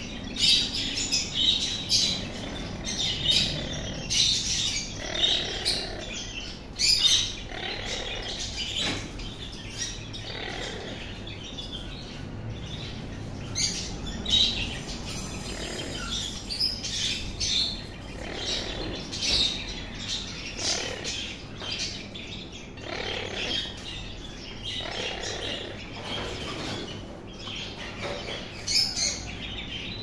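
Parrot chirping with short high chirps and the odd squawk, over scattered sharp clicks and knocks of a red lory's beak working at fruit in a plastic feeding dish.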